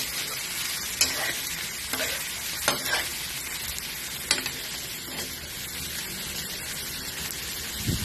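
Shell-on shrimp sizzling in a hot metal wok while a slotted metal spatula stirs them, with a few sharp clinks of the spatula on the pan in the first half.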